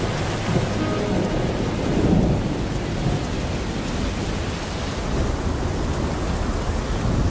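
Steady rain falling, with low rumbles of thunder.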